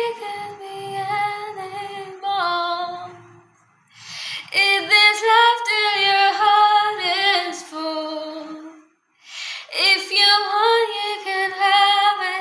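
A woman singing a melody in three long phrases, with brief pauses about four seconds in and again about nine seconds in.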